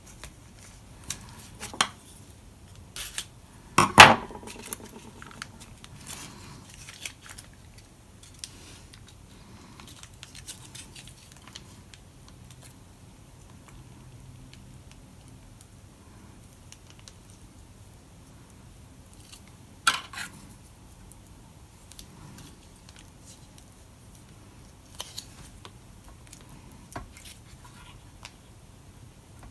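Quiet handling sounds of an MRE strawberry jam pouch being opened and its jam spread on bread with a metal spoon. Scattered sharp clinks of metal on a stainless steel tray, the loudest about four seconds in with a short ring, another around twenty seconds in.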